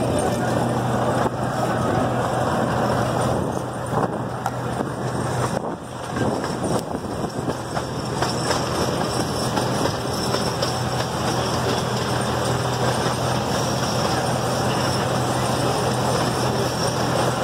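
C.P. Huntington miniature train running along its track, a steady low engine drone under continuous rumbling wheel and rolling noise, heard from an open passenger car, with a brief dip about six seconds in.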